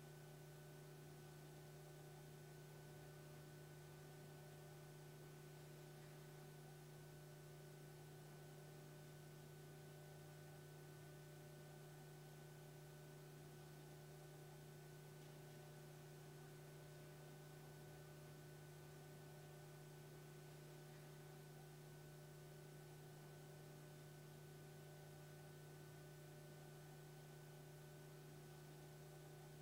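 Near silence: only a faint, steady electrical hum with a light hiss, unchanging throughout.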